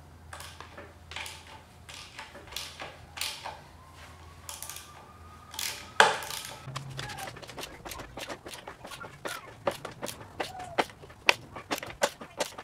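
A ratchet wrench clicking as a bolt is run in on a transmission mounting bracket. Scattered clicks and knocks in the first half give way to a fast run of ratchet clicks, several a second, in the second half. About six seconds in there is one loud, sharp metallic clank with a short ring, the loudest sound.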